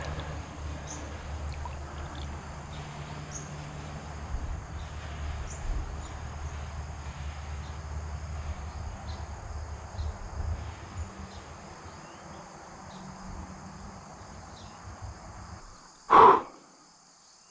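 Summer insects, crickets among them, chirping steadily over a low outdoor rumble. One short, loud sound comes near the end.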